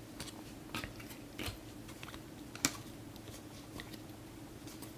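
Trading cards being handled and flicked through by hand, making soft, irregular clicks and one sharper click about two and a half seconds in, over a faint steady hum.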